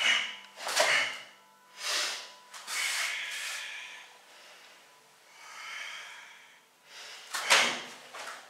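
A karateka performing a Shotokan kata, breathing out sharply through the nose with each technique, about six times with uneven gaps. The loudest breath comes near the end. The swish of his cotton gi mixes in with the breaths.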